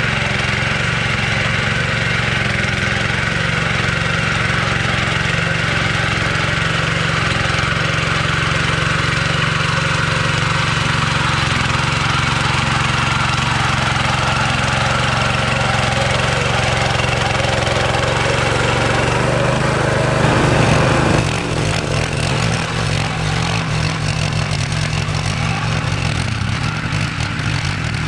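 Small gasoline engine running steadily under load; about twenty seconds in it briefly gets louder and its note changes.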